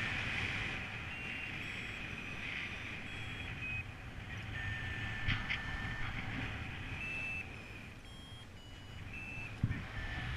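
Paragliding variometer beeping: short tones that jump about in pitch, with a few longer, lower steady tones, the instrument's audio signal of climb and sink. Underneath, the low rush of airflow over the microphone.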